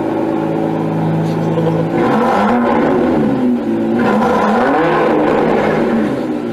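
Aston Martin DB11 engine and exhaust running at a steady speed, then revved up and down over and over from about two seconds in.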